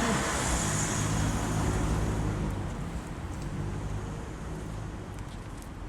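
A motor vehicle going past on a wet road, its engine hum and tyre hiss fading away after about two and a half seconds, over a steady hiss of rain.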